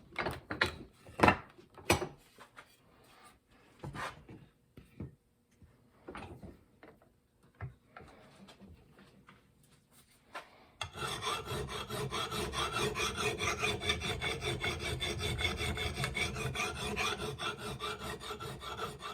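Bastard file rasping across the steel bit of a Plumb axe, sharpening the bevel and raising a burr along the edge. A few separate strokes and light knocks at first, then partway through a steady run of quick, even back-and-forth strokes.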